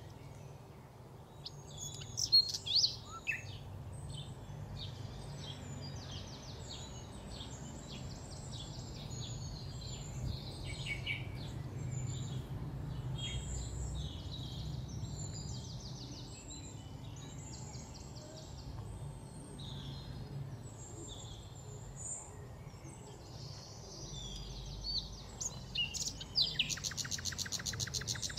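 Small birds chirping and calling, with short sweeping notes and quick trills, over a steady low background hum. Near the end comes a fast run of clicks.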